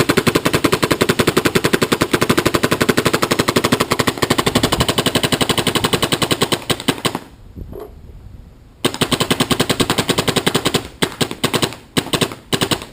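Planet Eclipse Etha paintball marker firing reballs in rapid automatic strings: one long string of more than ten shots a second for about seven seconds, a short pause, a second string of about two seconds, then a few single shots near the end.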